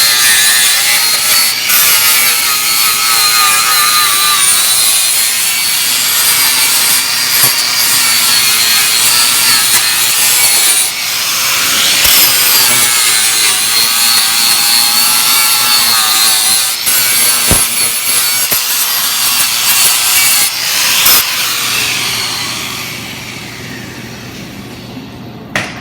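Hand-held power grinder grinding the cracked steel frame of a zero-turn mower down to bare metal. It whines steadily, and the pitch wavers as the disc bears on the metal; the grinding fades out near the end.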